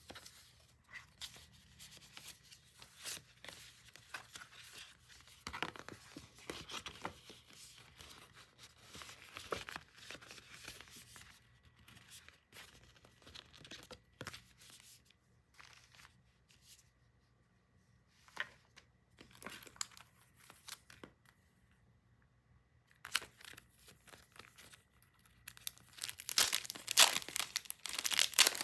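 Packaging being handled and opened by hand: crinkling and tearing in irregular bursts with short pauses, loudest near the end.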